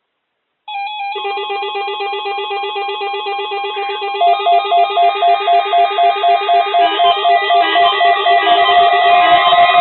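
Several NOAA weather alert radios sounding their electronic alarms together for a Required Weekly Test, as layered repeating beep patterns. About four seconds in, a louder pulsing beep of about three beats a second joins them.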